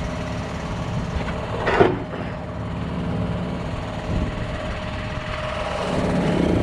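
A John Deere tractor's diesel engine idling steadily behind a hitched-up plough, with a short sharp sound a little under two seconds in and a fainter one about four seconds in; the engine grows slightly louder near the end.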